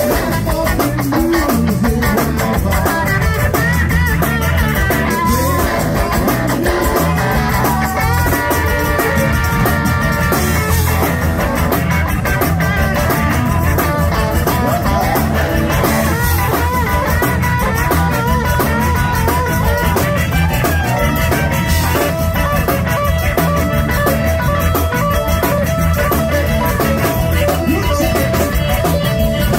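Zydeco band playing live with accordion, electric guitar and drum kit over a steady beat, an instrumental stretch with no singing.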